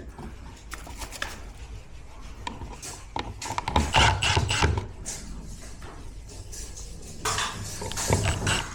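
Handling noise of hand work: irregular rubbing and scraping with light clattering knocks, busiest about four seconds in and again near the end.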